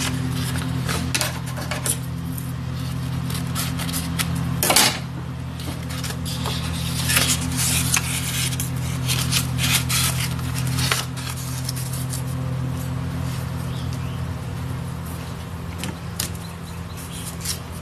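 Strip of 1000-grit abrasive cloth wrapped around a Ford 460 crankshaft journal and pulled across it by hand: short scraping swishes and rustles with light metallic clinks and knocks, over a steady low hum. The grit is fine enough that it only polishes the journal.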